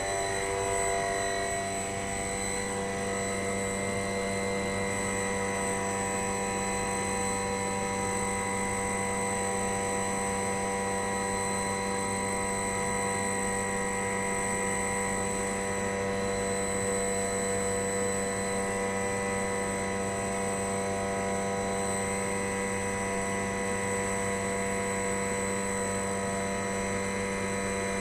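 Sabroe ammonia screw compressor running steadily: a constant machine hum with several steady whining tones above it, unchanging throughout.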